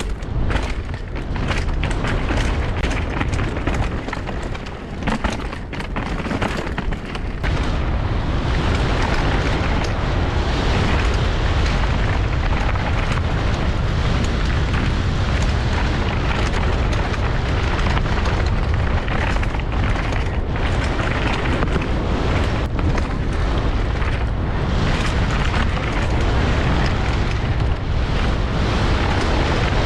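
Downhill mountain bike descending a dirt course, heard through an action camera: rushing wind buffeting the microphone with rattles and knocks from the bike over rough ground. The wind noise grows louder and steadier about eight seconds in as the bike picks up speed.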